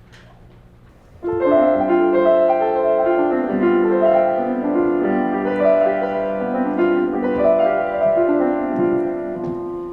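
Piano music: after about a second of quiet, a slow run of sustained notes begins and carries on at an even pace.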